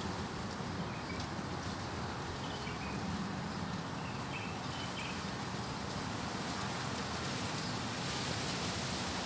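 Strong wind blowing steadily through trees, leaves rustling.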